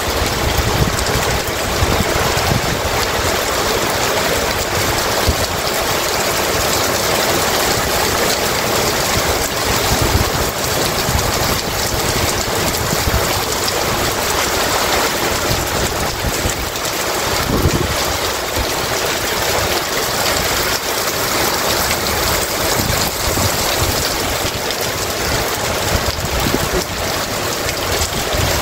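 Heavy rain pouring steadily onto pavement, a loud even hiss with no letup.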